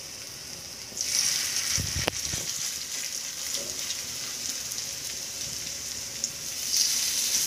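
Coriander-and-gram-flour batter sizzling as it shallow-fries in hot oil in a nonstick pan. The sizzle grows louder about a second in, and there is a brief soft knock about two seconds in.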